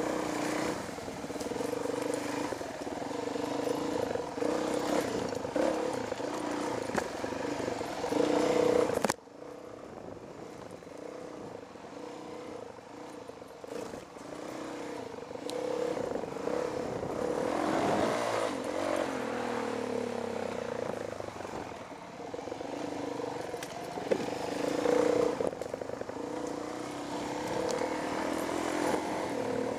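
Dirt bike engine running on a rough woods trail, revving up and down with the throttle, with clatter from the bike over uneven ground. The engine sound drops off abruptly about nine seconds in, then builds again.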